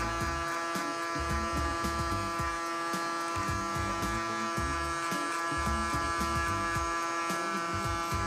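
Panasonic electric hair clipper running with a steady buzz, its blades cutting hair for a fade.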